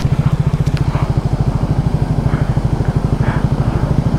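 KTM Duke motorcycle engine running at low revs with a steady, rapid pulsing beat as the bike is ridden slowly over rough gravel and mud.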